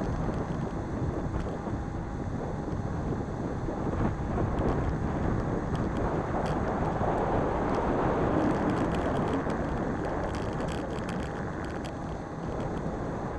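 Riding scooter: steady rushing wind on the microphone over the rumble of small tyres rolling on asphalt, with a few faint ticks and rattles partway through.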